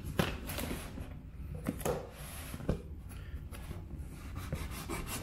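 Folding knife blade scraping and cutting along the taped seams of a cardboard box, with hands rubbing and shifting the cardboard. The scrapes and light knocks come at irregular moments.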